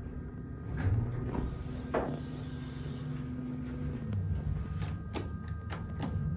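Dover hydraulic elevator arriving at a floor: a steady low hum of the running hydraulic system winds down about four seconds in, and the car doors slide open. A few sharp clicks come near the end.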